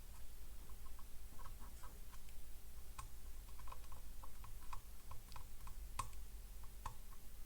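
Light, irregular clicks and taps of multimeter probes and a meter being handled on a circuit board, two of them sharper, over a faint steady low hum.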